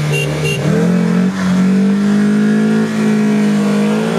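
Two short high beeps of the start signal, then a car engine revving hard on the launch of a drag race: the pitch climbs about a second in and then holds steady and high under full throttle.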